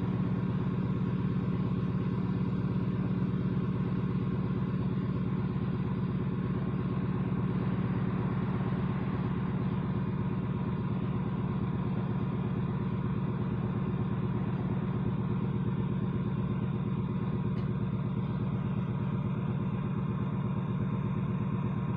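A motor vehicle engine idling steadily, a low even rumble with no change in speed.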